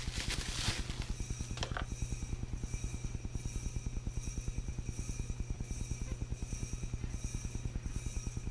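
A machine running with a steady low hum that pulses evenly, about seven times a second, over a faint high whine. There is a brief click about two seconds in.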